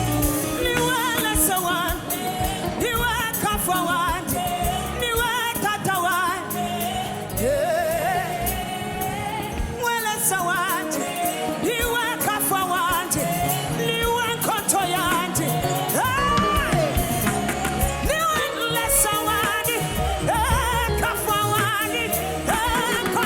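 Live gospel worship music: a singer's voice sweeping and wavering in long sung lines over continuous band accompaniment.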